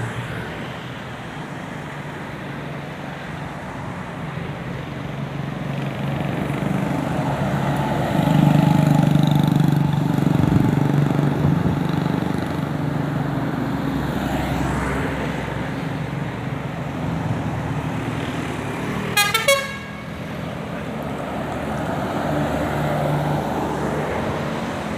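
Buses running past in traffic with engine and road noise, and a bus's multi-tone 'telolet' horn sounding. A held horn chord comes about a third of the way in, and a quick burst of three short, shrill toots about three-quarters through.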